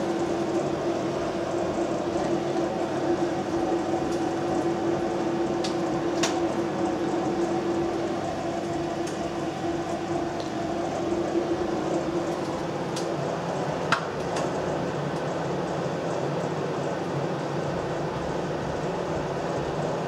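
A 700-watt microwave oven running with a steady hum and a held low tone, while the wall meter shows it drawing about 1300 watts. A single sharp click comes about two-thirds of the way through.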